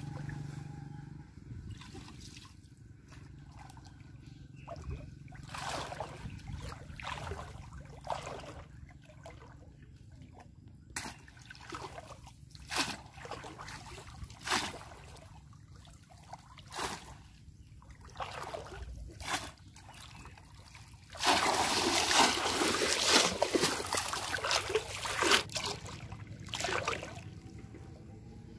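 Shallow pond water splashing and sloshing around a wading boy's legs and a bamboo polo plunge-basket fish trap: a string of separate splashes, then a louder spell of steady splashing about three quarters of the way through.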